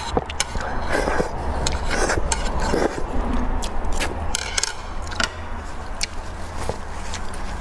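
Close-miked eating of noodle soup: irregular wet smacks, chewing and sharp little clicks, over a steady low hum.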